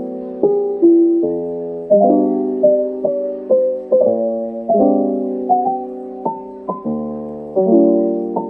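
Background piano music: a gentle melody over sustained chords, notes struck every half second or so and left to ring.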